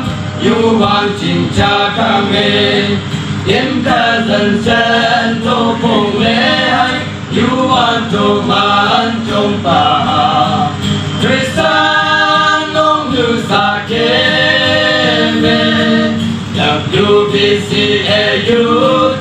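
A group of young men singing a Christian song together into microphones, amplified through a PA.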